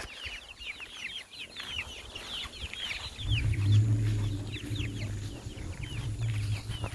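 A flock of hens calling, many short, high, falling calls overlapping in quick succession. About three seconds in, a low steady hum starts underneath.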